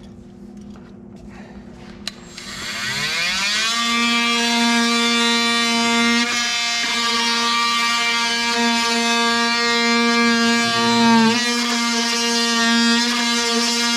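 Cordless power tool motor spinning up about two seconds in, its whine rising in pitch and then holding steady. It dips briefly about eleven seconds in, as if under load, then recovers. The tool is running a fastener out to remove the fuse-box clamp.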